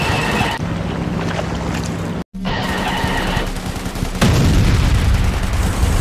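Layered cartoon battle sound effects: a dense noisy din like gunfire over a low steady hum, cut off for a moment about two seconds in. A louder low rumble comes in about four seconds in.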